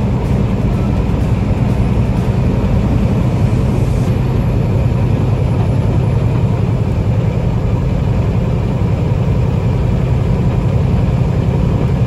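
Semi truck's diesel engine running steadily under way, heard from inside the cab as a low, even drone with road noise.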